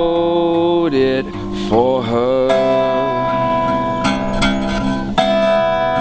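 Acoustic guitar accompanying a man's singing voice: a sung note held to about a second in and a brief sliding vocal sound near two seconds, then strummed acoustic guitar chords ringing on alone.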